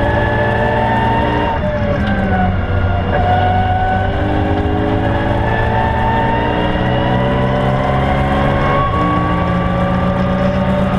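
BMW E92 M3's 4.0-litre V8 engine heard from inside the cabin, pulling hard on track with its pitch climbing under acceleration. The pitch drops sharply about a second and a half in, then climbs steadily again for several seconds before another sudden change about nine seconds in.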